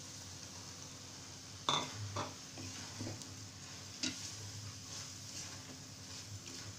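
Spatula stirring grated carrots and freshly added sugar in a steel kadhai, with a faint steady sizzle from the cooking mixture. A few sharp knocks of the spatula against the pan, the loudest a little under two seconds in, then three more over the next two seconds or so.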